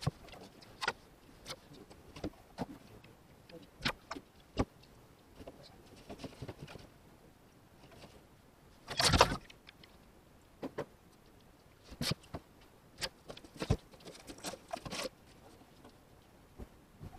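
Scattered clicks, knocks and rustling as loose items in a pickup truck's cab are handled and moved about during a clean-out, with one louder clatter about nine seconds in.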